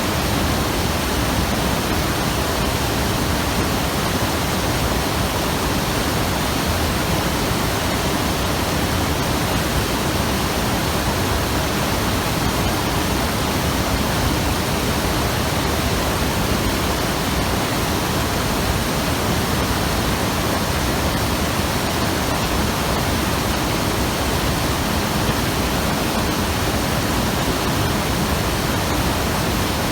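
River water rushing over rocks: a loud, steady roar of flowing water with no let-up.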